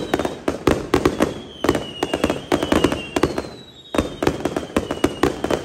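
Strings of firecrackers going off in a rapid, irregular run of sharp bangs, with a short lull about three and a half seconds in. A thin high whine comes and goes behind the bangs.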